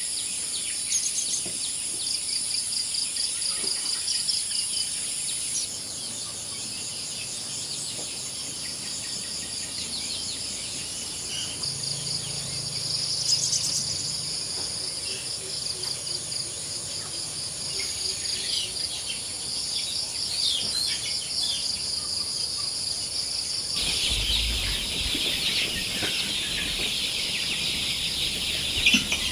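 Insects trilling steadily in a high-pitched, pulsing chorus, with chickens calling now and then.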